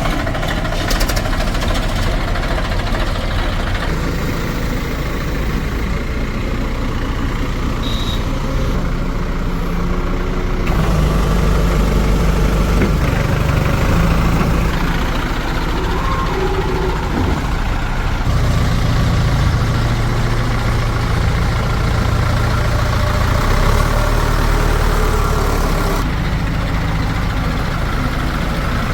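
Heavy diesel engine of a backhoe loader or tractor running steadily, its pitch shifting a few times as the engine speed changes.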